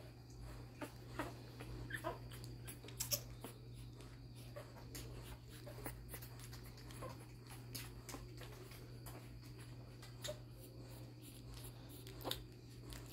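Eight-day-old puppies giving a few faint, brief squeaks and whimpers as they are handled, with scattered soft clicks and rustles over a steady low hum.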